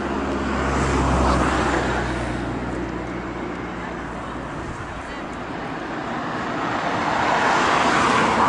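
Road traffic: passing cars, a swell of engine and tyre noise about a second in and another near the end, with a low engine hum that fades out midway.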